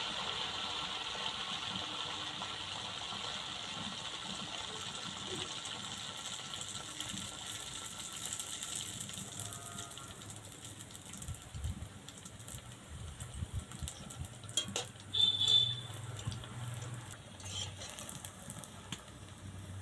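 A batter fritter sizzling in hot oil in a steel karahi, a steady hiss that slowly fades. In the second half a few metal clinks of a spoon against the pan, as the fritter is turned and lifted with a slotted spoon.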